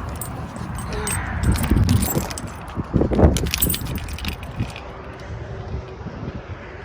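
Jingling and clattering of small items being handled, with a few heavier knocks, busy for the first four seconds or so and then dying down.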